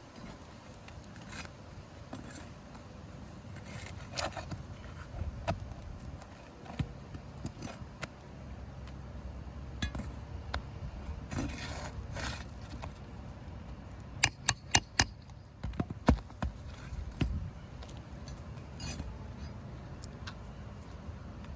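Steel flat bar scraping and clinking as it pries under asphalt roof shingles, with a quick run of four or five sharp metallic clicks about two-thirds of the way through.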